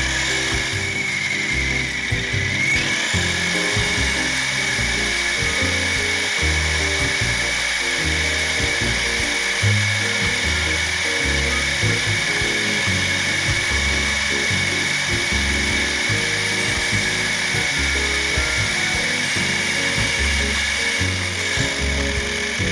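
Background music with a pulsing bass line, over the steady whine of an RC crawler's electric motor and drivetrain.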